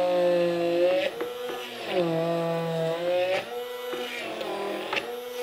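Vitamix immersion blender motor running with its blade in a mason jar of frozen strawberries and banana, making nice cream. The whine dips and recovers in pitch as the blade works through the frozen fruit, and is strongest in the first second and again from about two to three seconds in.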